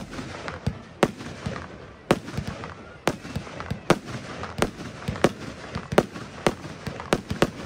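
Röder Feuerwerk 'Atomik Sisters' firework firing, with shots launching and bursting overhead: a rapid, uneven series of sharp bangs, about two a second.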